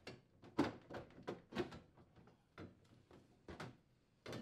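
KitchenAid refrigerator's plastic lower freezer drawer clacking and knocking against its metal slide glides as its sides are squeezed and it is lifted free. A string of light knocks, with a sharper one near the end.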